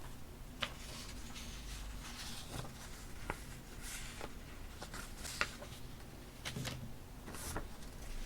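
Paper and stationery being handled on a desk: soft rustling and sliding of paper with several light clicks and taps, the sharpest about five seconds in.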